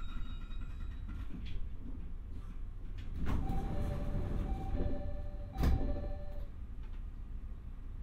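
Passenger doors of a JR East E501 series train closing at a station stop: a two-note door chime repeats while the sliding doors run shut, and the doors meet with a loud thump a little past halfway through.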